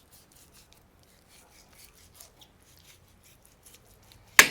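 Knife trimming the fat cap from a raw eye of round beef roast: a run of short, faint scraping strokes, then a sharp knock near the end.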